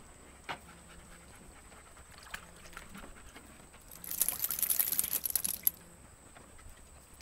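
Dog lapping water from a plastic tub: a few single wet laps, then a quick, dense run of lapping for about a second and a half past the middle.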